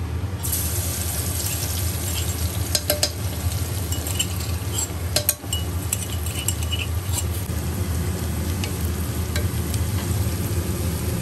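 Chopped garlic frying in hot oil with whole spices in a pressure cooker, sizzling hard from about half a second in. It is stirred with a wooden spatula, with a few sharp clicks.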